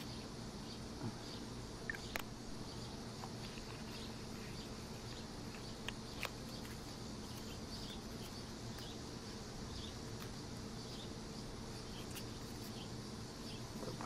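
A few faint clicks from handling a lipstick-case knife and its small cardboard box, over a steady low hum and faint, repeated high chirping in the background.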